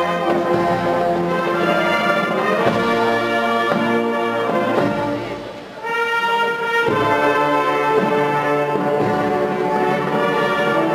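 Music led by brass, playing long sustained chords. It falls away briefly about halfway through before the next chord comes in.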